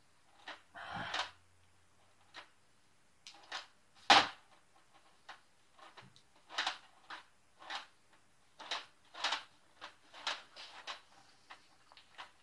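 Tools and small metal grinder parts knocking and clinking on a metal workbench top as the grinder is worked on by hand: about a dozen short, irregular knocks, the loudest about four seconds in, with a brief scrape near the start.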